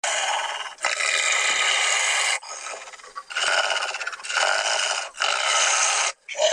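Monster growling and snarling in a run of harsh, rasping bursts about a second each: a werewolf growl sound effect.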